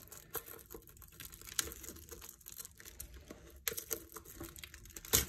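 Fingers picking and scratching at the shrink-wrap plastic on a boxed disc set, trying to open it: faint crinkling with scattered small clicks and a sharper click near the end.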